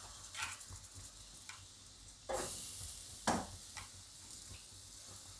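Gram flour (besan) sizzling as it roasts in hot oil in a kadai while spice paste is scraped into it from a bowl. The sizzling swells louder a little over two seconds in, and a few light clicks of the spoon against the bowl are scattered through it.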